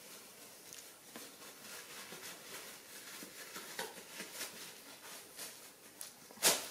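Soft rustling and light crinkling of a disposable diaper being handled and fastened on a baby macaque, with one short, louder crackle near the end.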